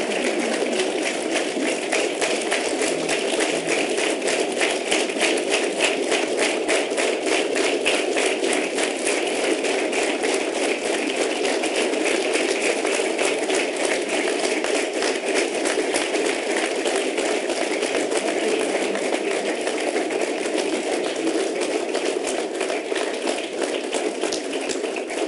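Large audience applauding at length, a dense, even patter of many hands clapping that eases slightly near the end.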